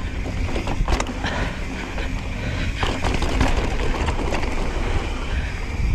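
Specialized Stumpjumper mountain bike riding down a rough dirt trail: a steady rumble and rattle of tyres and frame over the ground, with sharp knocks from bumps about one second in and again near three seconds.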